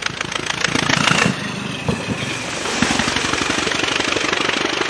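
Fiat S76 'Beast of Turin' racing car's huge 28.5-litre four-cylinder engine running under way, a loud rapid train of exhaust pulses as the car drives past.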